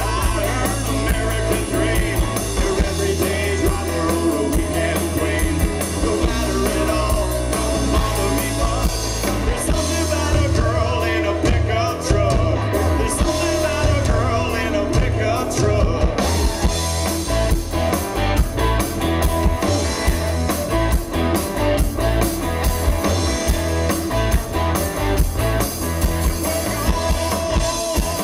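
Live band playing an up-tempo country-rock song: drum kit keeping a steady beat, with guitar, a heavy bass line and singing at times.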